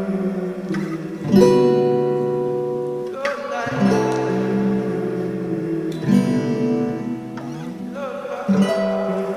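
Music: an acoustic guitar strumming chords, one roughly every two to three seconds, each left to ring out and fade.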